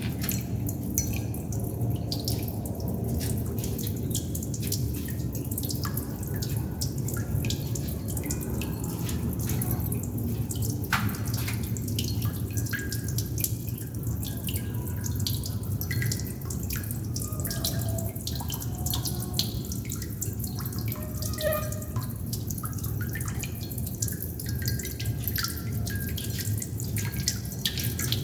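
Water droplets dripping irregularly, many small plinks and ticks over a steady low water rumble.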